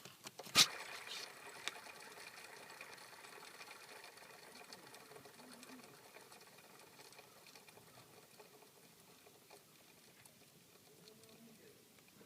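A Honda F20C accessory-belt pulley bearing, from the tensioner or idler, set spinning with a sharp click about half a second in. It then gives a rough whirring with a faint ring that slowly fades as it spins down, the abnormal noise of a worn bearing.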